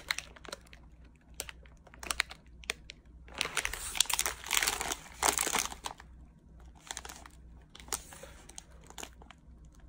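Crinkly snack bag of mini chocolate chip cookies rustling and crackling in the hands as it is handled, in irregular bursts that are loudest in the middle, with smaller crackles near the end.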